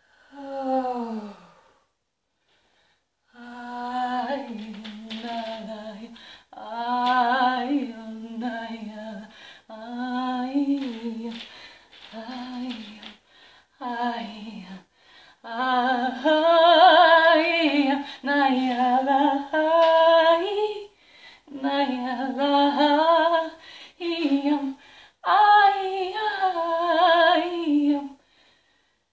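A woman's improvised wordless singing and humming. It opens with one falling vocal slide, pauses for about two seconds, then runs as a string of short wavering phrases that move up in pitch about halfway through.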